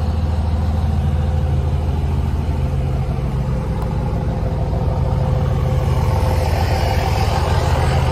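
A 2005 Ram 3500 dually pickup's engine idling steadily, a low even drone.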